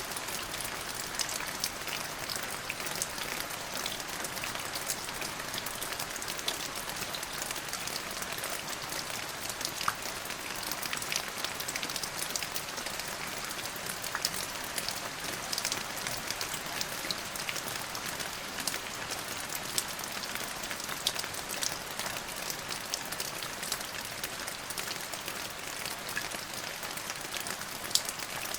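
Steady rain falling, with many sharp drop hits ticking over an even hiss; no thunder.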